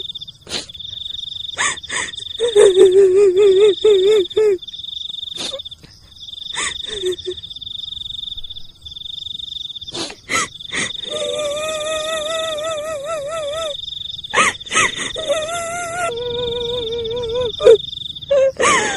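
A steady, high, pulsing insect-like trill with repeated wavering, quavering calls laid over it, each lasting one to three seconds, and scattered sharp clicks: an eerie night-time soundscape offered as ghost sounds.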